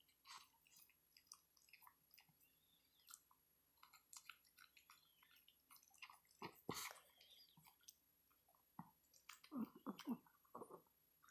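Small dog licking and chewing pieces of popsicle from a hand: faint wet lapping and smacking with scattered small clicks, louder about six and a half seconds in and again near ten seconds.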